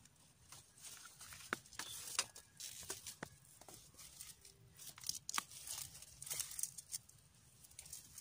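Dry twigs and leaves rustling and crackling, with scattered small snaps and ticks.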